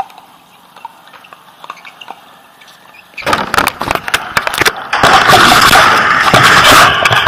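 Faint scattered clicks, then from about three seconds in loud rubbing and scraping on the microphone as the action camera is picked up and handled, loudest near the end.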